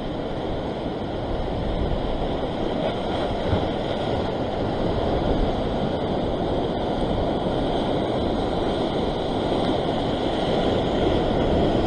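Sea surf breaking and washing over shoreline rocks, a steady rush of water with no distinct pauses, mixed with low wind rumble on the microphone.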